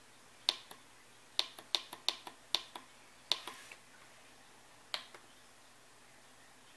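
About a dozen sharp clicks of a laptop trackpad and device buttons being pressed, bunched in a quick run during the first three and a half seconds, with two more about five seconds in.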